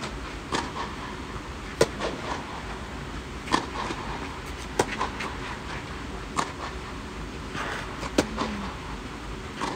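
Tennis rally: a ball struck back and forth with rackets, about six sharp hits every second and a half or so, with quieter ball bounces on the clay court between them.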